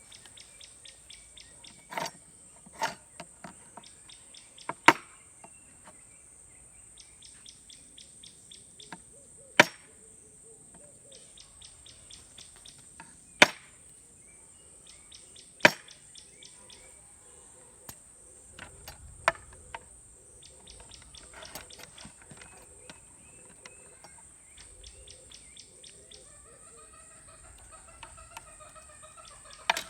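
Crickets chirping, a steady high ring with repeated runs of rapid pulses. Several sharp, loud clicks or knocks stand out, scattered through the first half. Wavering calls come in near the end.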